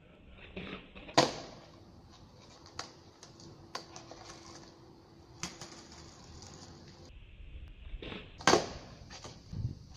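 Skateboard popping and landing on flat pavement: a sharp clack about a second in and another loud clack with a thump near the end as the board comes down, with lighter clicks of the board between.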